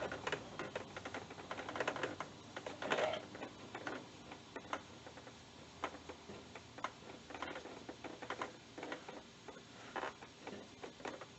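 Faint, irregular light clicks and taps of bolts and hand tools being handled while a bush hog's blade assembly is put back together, with a short scrape about three seconds in.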